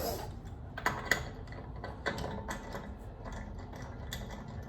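Ratchet socket wrench working the wheel's lug nuts off, with irregular light clicks and metal taps several times a second.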